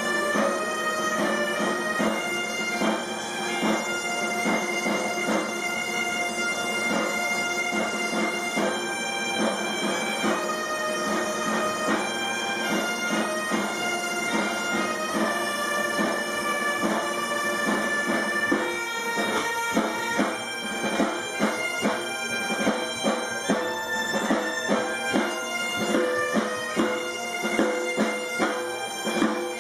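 Asturian gaitas (bagpipes) playing a tune over a steady drone, with a rope-tensioned side drum keeping the beat; the drum strokes come through more clearly, in an even rhythm, from about two-thirds of the way in.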